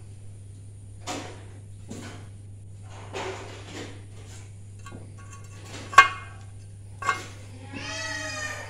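Metal parts of a Suzuki 15 hp outboard's gearbox clinking and knocking as new bearings and gears are fitted into the lower-unit housing by hand: a few scattered clicks, the sharpest with a short metallic ring about six seconds in. Near the end a short pitched cry sounds over it.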